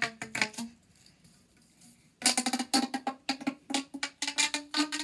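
Plastic pop tube being stretched and squashed. A few clicking pops come at the start, then after a short pause a fast, irregular run of pops, each with a brief pitched ring.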